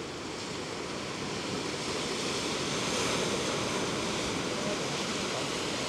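Steady sea surf washing against a rocky shore, mixed with wind. It grows a little louder about two seconds in.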